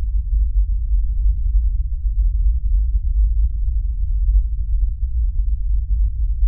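A low, steady rumbling drone with nothing higher over it, the bass bed of the film's suspense score carrying on after its tones drop out.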